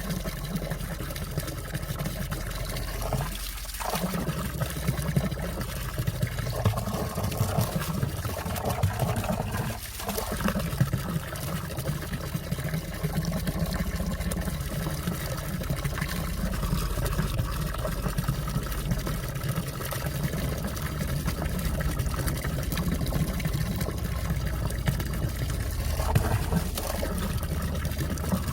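Clear stream water flowing and trickling under and around ice, a steady unbroken running sound with small ticks and splashes.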